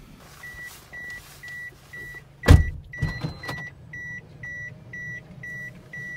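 A car's electronic warning chime beeping at a steady high pitch, about two beeps a second. A loud thump about two and a half seconds in, with a few smaller knocks after it.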